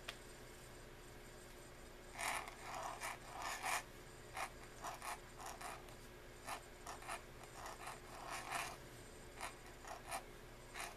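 Pointed nib in an oblique pen holder scratching across paper as letters are written. The strokes come in short clusters, starting about two seconds in and going on until near the end.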